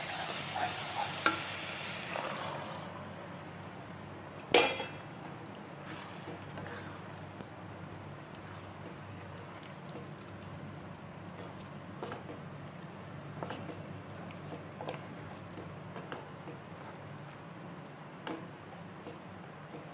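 Masala sizzling in a pan as a spoon stirs it, loudest in the first few seconds, with a sharp clink against the pan about four and a half seconds in. Then a quieter, steady sizzle with light scrapes and taps as boiled chickpeas are stirred through the masala.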